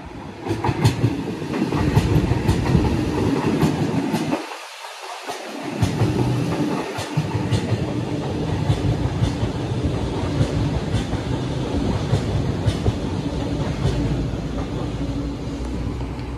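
Sydney Trains Waratah (A set) double-deck electric multiple unit running past close along the platform, with a steady running noise and a faint hum, broken by irregular wheel clicks over rail joints.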